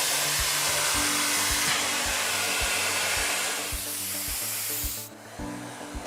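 Miele Complete C3 canister vacuum cleaner running, a steady rush of air that drops in steps and cuts off about five seconds in. Faint background music with a steady beat underneath.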